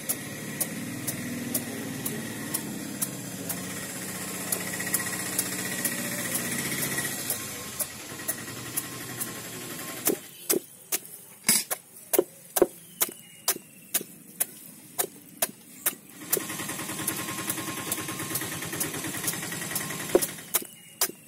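Steel blade chopping raw jackfruit against a wooden board in quick, regular strokes, about two sharp knocks a second. Under the strokes a motor hums steadily, dropping away for several seconds in the middle.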